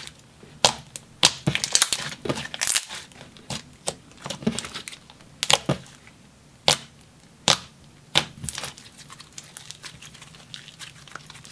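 Thick, glossy glue-based slime being squeezed, folded and poked by hand, giving irregular sharp bubble pops and clicks, a handful of them loud, with soft crackling between.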